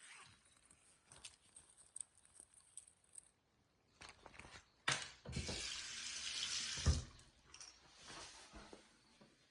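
A sink tap running briefly for about a second and a half, with a knock as it starts and a heavier thump as it stops, among faint scattered clicks.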